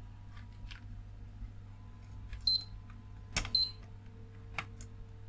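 Digital multimeter's continuity buzzer giving two short high beeps about a second apart, with clicks of the probe tips touching the power supply board. The beeps cut off at once rather than sounding steadily, so the capacitor being probed is not shorted.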